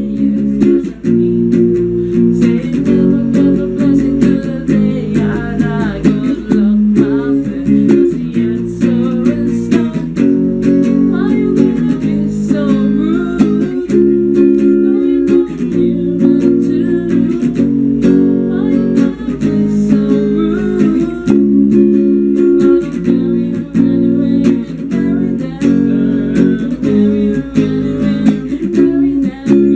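Electric guitar playing an instrumental passage: changing chords with melodic runs and slides over them.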